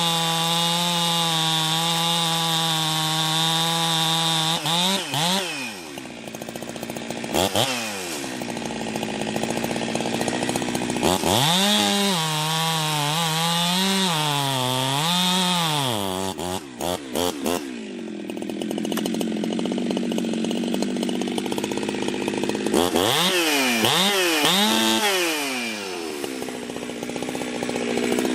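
Ported Jonsered 2071 two-stroke chainsaw, with an exhaust mod and the decompression valve plugged, running at high revs in the cut. The pitch wavers under load, drops back to idle several times between cuts, and climbs again.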